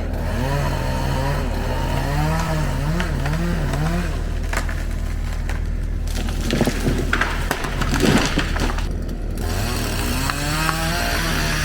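Chainsaw felling a tree, its engine revving up and down. About halfway through come sharp cracks and a crashing of wood as the tree breaks and falls, and the saw revs again near the end.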